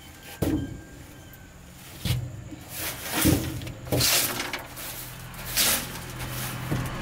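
Straw broom sweeping the rusty ribbed steel bed of a 1999 Daewoo truck: several separate scratchy swishes of bristles across the metal.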